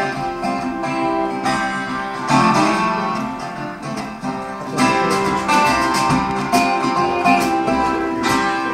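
Recorded music led by plucked acoustic guitar, played through the Diesis Audio open-baffle horn loudspeakers.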